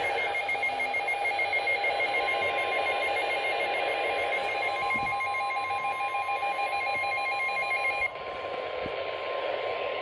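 Emergency alert broadcast over a weather radio, with a steady alert tone near 1 kHz over radio static. The tone is typical of the 1050 Hz NOAA Weather Radio warning alarm. A rapid pulsing pattern of higher tones runs alongside it and cuts off about eight seconds in.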